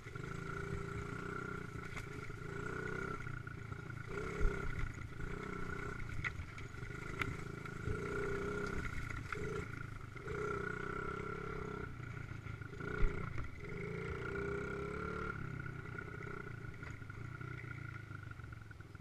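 Dirt bike engine running as it is ridden, its revs rising and falling with the throttle. Two sharp knocks stand out, one about four seconds in and a louder one about thirteen seconds in.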